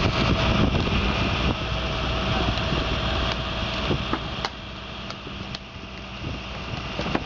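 Steady rumble of an idling vehicle engine, with a few faint knocks; the rumble drops somewhat about four and a half seconds in.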